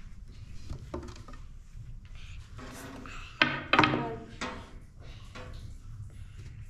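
Light knocks and rubbing of a long rolling pin and small hands working dough on a round floured wooden board. A brief voice, the loudest sound, calls out about three and a half seconds in.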